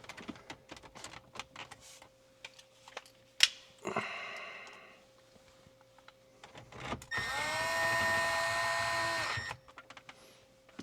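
Small clicks and a sharp knock of plastic dash trim being handled, then a small electric motor whirs briefly about four seconds in and again, steadily and louder, for about two and a half seconds near the end.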